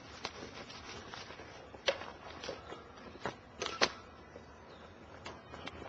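Footsteps while walking: scattered sharp clicks and knocks, the loudest pair a little before four seconds in.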